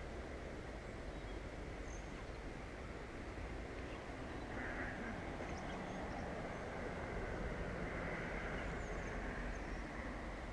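Steady outdoor background noise with wind rumbling on the microphone, and a few faint bird calls over it, about halfway through and again near the end.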